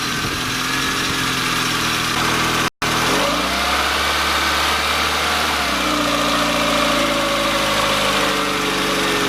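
Peugeot petrol engine running just after a spark-plug change, idling, then revved about three seconds in and settling lower near six seconds, with a brief break in the sound just before the rev. The owner judges it runs about the same, the misfire the new plugs were meant to cure not clearly gone.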